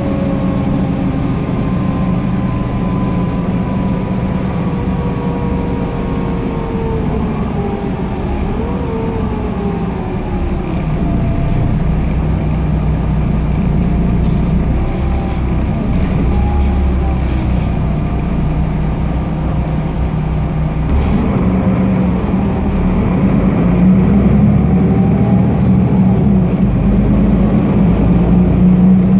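Inside a moving Solaris Urbino 18 III articulated bus: its DAF PR228 diesel engine and Voith automatic gearbox running with road rumble. A whine falls in pitch over the first ten seconds, there are a few light clicks midway, and the engine grows louder in the last third.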